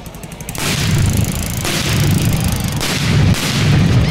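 A string of firecrackers going off in a dense, rapid crackle of bangs that starts suddenly about half a second in and keeps going loudly in surges.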